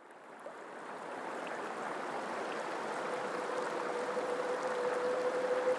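A steady rushing noise fades in from silence and slowly grows louder, with a faint steady tone running underneath.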